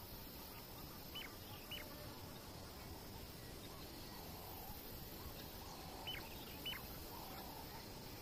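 Faint outdoor bush ambience with birds calling: two pairs of short, sharp chirps, one pair about a second in and another about six seconds in, among a few softer, lower calls.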